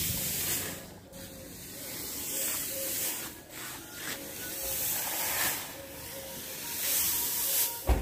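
Dry chopped straw fodder rustling and swishing as it is forked and spread with a pitchfork, in repeated strokes that come and go every second or two.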